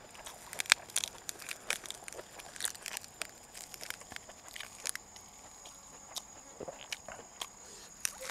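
Close-miked eating sounds: wet chewing and lip smacks, with crisp crackles of fresh lettuce leaves being torn and folded, in irregular sharp clicks, and a bite into the lettuce wrap near the end.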